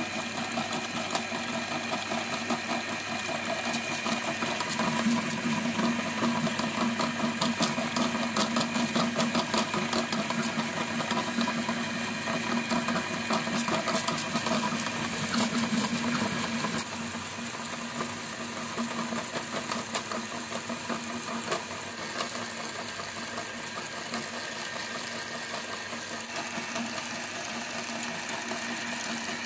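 Electric meat grinder motor running steadily while crunching dry instant noodle blocks, with a dense crackle of snapping noodles. After about seventeen seconds the crackle eases and the motor runs on more evenly and a little quieter.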